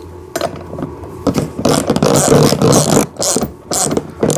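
Ratchet wrench clicking in rapid runs as a 17 mm nut is tightened onto a plastic ride-on car's wheel axle, with a few separate clicks near the end.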